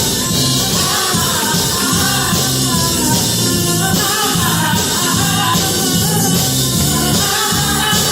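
Music: a song with singing over a full band.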